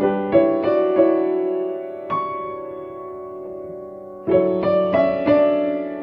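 Solo piano playing a slow new-age piece: a quick run of notes at the start and another about four seconds in, with a single high note near two seconds, each left to ring and fade.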